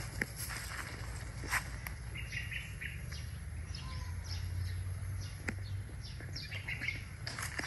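Small birds chirping in short, scattered calls over a low steady rumble, with a few sharp clicks.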